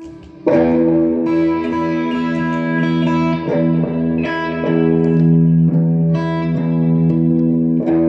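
Electric guitar played through an MXR Dyna Comp compressor pedal into an Orange amplifier: a chord struck about half a second in and held with long, even sustain, followed by several chord changes.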